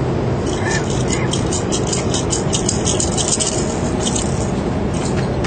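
Steady jet airliner cabin noise, a constant low rush. Over it, a quick run of small clicks and rustles from about half a second to four seconds in, and one more near the end.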